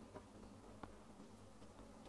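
Near silence, with a few faint, short clicks.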